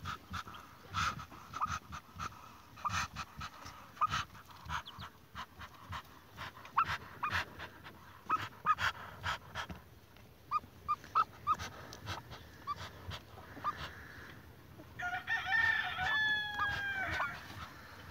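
Peeping and rustling at a Muscovy duck's nest of hatching eggs and newborn ducklings: many short clicks and high pips, then about fifteen seconds in a louder call of about two seconds that falls in pitch.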